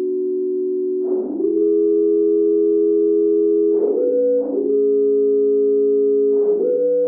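Background music: slow, held keyboard chords that change to new chords every few seconds.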